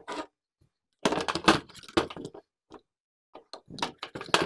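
Clattering and knocking of a Husqvarna 142 chainsaw's handle against the saw's plastic housing as it is fitted on, in two flurries of short sharp clicks, about a second in and again near the end.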